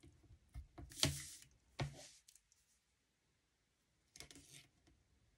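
Hands handling a cardstock panel and thin adhesive tape on a tabletop: a few light taps and clicks, the loudest about a second in, then a pause and a short soft rustle of paper near the end.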